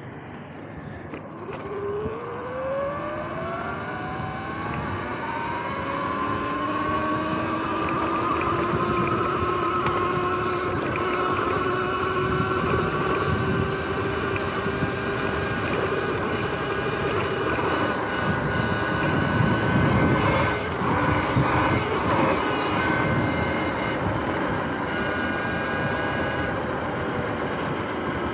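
Sur-Ron X electric dirt bike's motor whining as it pulls away, the whine rising in pitch for several seconds and then holding steady at cruising speed, over a steady rush of wind and tyre noise.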